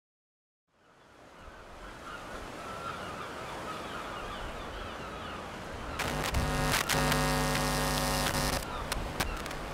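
Outdoor river ambience fading in: water lapping and faint bird chirps. About six seconds in, a jet ski engine starts up with a few clicks and runs at a steady pitch for about two and a half seconds, then drops back, with scattered clicks near the end.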